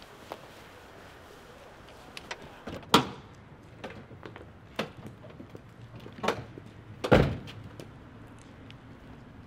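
A pickup truck's door: a sharp latch click about three seconds in as it is opened, a few lighter knocks, then a heavy slam a little after seven seconds as it is shut.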